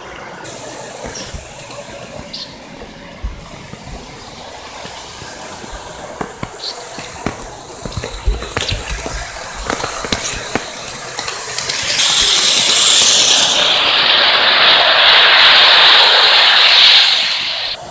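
Model train running on its track close to the microphone, with scattered clicks and rattles, then a loud, even rushing hiss from about twelve seconds in that stops abruptly just before the end.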